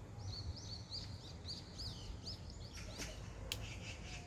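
A small bird chirping: a quick run of short, high notes, about four a second, lasting some two and a half seconds, followed by two sharp clicks, over a low steady outdoor hum.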